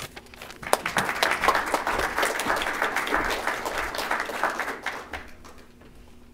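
Audience applauding, starting about a second in and dying away after about four seconds.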